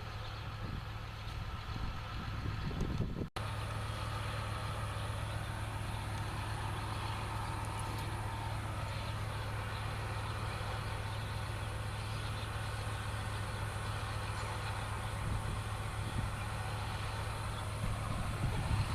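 Tractor engine running steadily with a low hum; the sound cuts out for an instant about three seconds in.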